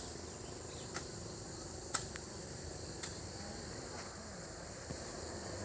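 Insects chirping in a steady high-pitched drone, with a few light clicks about once a second.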